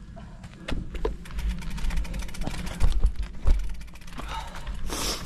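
Mountain bike riding over a rough forest singletrack: a steady deep rumble of tyres and wind on the bike-mounted microphone, with many quick knocks and rattles as the bike bounces over roots and bumps, and a brief hiss near the end.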